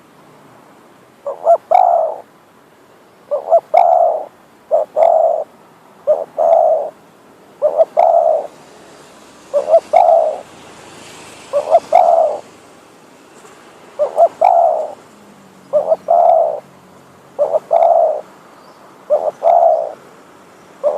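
Decoy spotted dove cooing: a short note followed by a longer rolling double coo, the phrase repeated about every second and a half, a dozen times. Faint high chirps sound above it.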